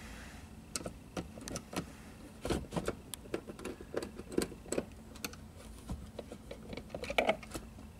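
Irregular light clicks and knocks of the hard plastic overhead console and its small bolts being handled as the console is pushed up into the headliner and held in place, the loudest cluster of clicks about seven seconds in.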